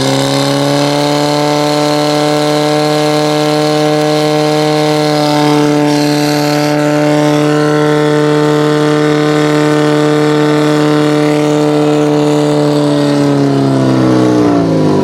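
Portable fire pump engine running flat out to drive water through the attack hoses. Its pitch climbs at the start, holds steady, then winds down near the end.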